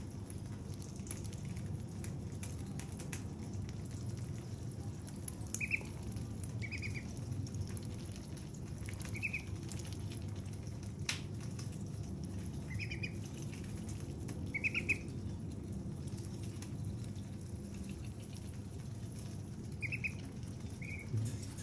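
White domestic ducks pecking and nibbling at a hand-held watermelon slice, their bills making scattered small clicks and taps, with short high peeping calls every few seconds over a steady low hum.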